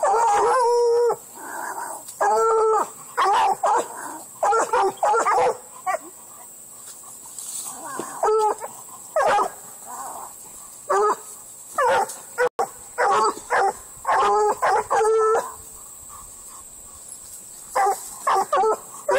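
Bluetick coonhound barking, short loud pitched barks in quick runs with a few seconds' pause between runs.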